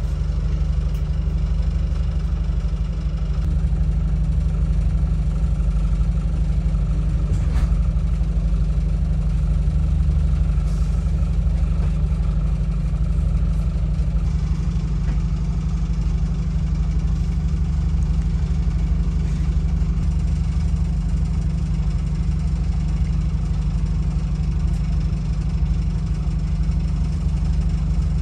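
Diesel train engine running steadily: a constant low rumble with faint steady higher tones above it.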